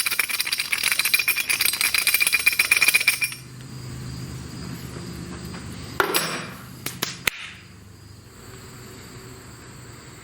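Loose metal part from a Hyundai Tiburon rattling fast, a tinny jingling that reproduces the annoying rattle it made on the car, stopping about three seconds in. After it comes a quieter low hum, one sharp knock and a couple of clicks.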